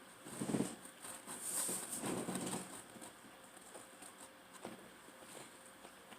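Close-up chewing and mouth sounds of someone eating pizza: a few bursts of wet smacking in the first three seconds, then scattered soft clicks.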